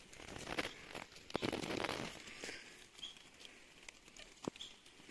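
Faint irregular rustling and crunching of dry leaves and stony ground underfoot, with a couple of small high chirps from a bird about three seconds in.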